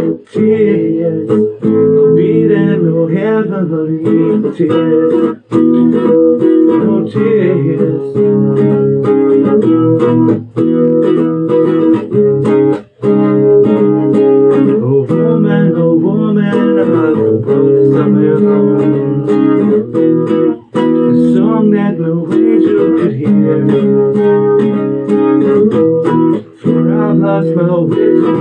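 Music: a song with guitar accompaniment, playing continuously.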